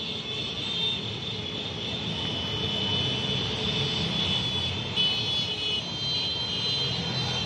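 A long convoy of motor scooters and small motorcycles riding past, their many engines blending into one steady hum.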